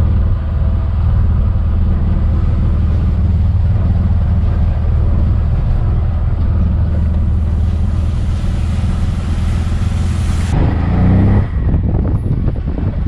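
Tuk tuk (three-wheeled auto rickshaw) engine running with a steady low hum while driving, with road and wind noise heard from the passenger seat. About ten and a half seconds in, the hiss drops away and the engine note briefly rises.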